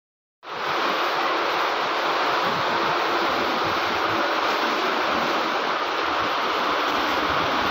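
Fast-flowing muddy floodwater rushing along a street: a steady wash of water noise that starts abruptly just under half a second in.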